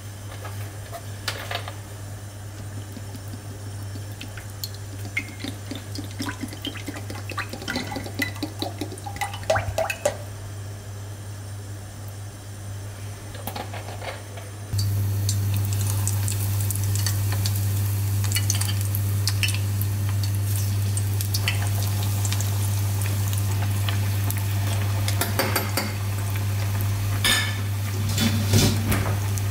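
Cooking oil poured into a stainless steel saucepan, the pour rising in pitch as the pan fills. From about halfway, a steady sizzle with crackles as jackfruit pieces deep-fry in the hot oil. A low hum runs underneath.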